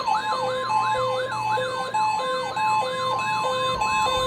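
NOAA Weather Radio alert during a required weekly test. The steady 1050 Hz warning alarm tone sounds, and over it weather-radio receiver alarms go off together: a siren sweeping up and down about three times a second, and a beeping tone alternating between a low and a higher pitch.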